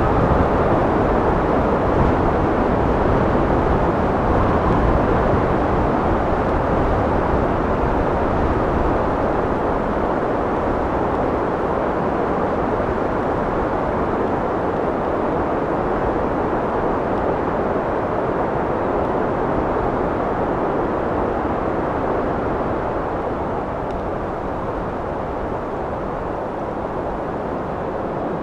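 Steady wind blowing, a dense rushing noise that eases slightly in strength near the end.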